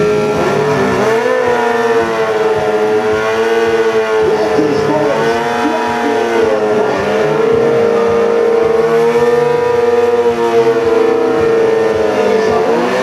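Sport motorcycle engine held at high revs during a burnout, the rear tyre spinning in place to heat it before a drag run. The pitch stays high and steady, wavering slightly.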